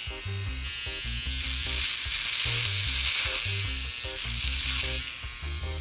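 Philips OneBlade electric trimmer running against the skin, its blade cutting short stubble on the neck with a crisp, crackling hiss that is strongest through the middle.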